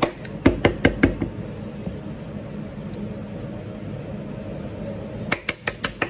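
Metal spoon clicking and knocking against a stainless steel plate as hummus is spread around it: a quick run of taps in the first second, then another run near the end, over a steady low hum.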